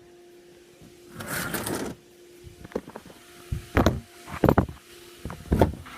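A short burst of hiss, then from the middle on a run of irregular knocks and thumps, with a faint steady hum underneath.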